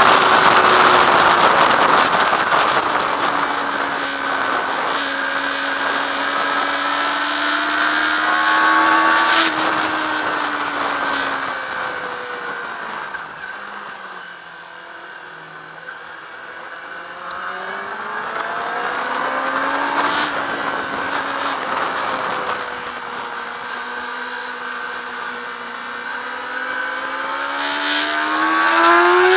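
Yamaha R6 sport bike's inline-four engine under a rider's lapping, heard from the handlebars with wind rush over the microphone. The revs fall while braking into corners and climb while accelerating out. They drop lowest and quietest about halfway through, then rise again several times, climbing hard near the end.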